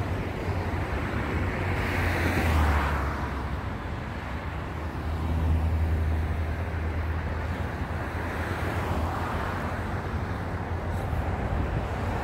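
Outdoor road traffic with a low wind rumble on the microphone; vehicles pass, swelling about two seconds in and again around five to seven seconds in.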